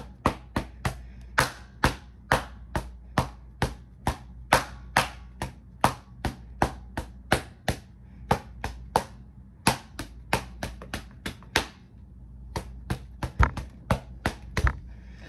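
A rapid, uneven series of sharp knocks, about three a second, with a brief pause about twelve seconds in.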